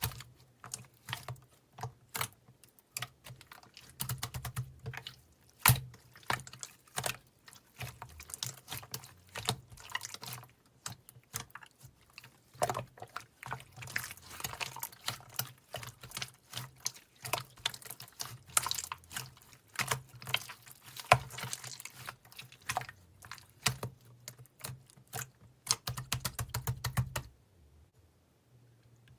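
Dense, irregular clicking and tapping that stops abruptly shortly before the end.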